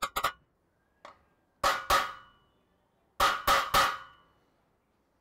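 Hammer striking a center punch on a steel plate, marking hole centres for drilling: sharp metallic taps with a short ring, two at the start, two about a second and a half in, and three in quick succession past the three-second mark.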